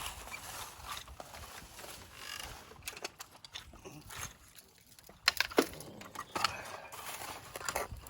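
Rustling and scraping of toy construction vehicles being pushed through dirt and rocks, then several sharp plastic clacks and knocks about five seconds in.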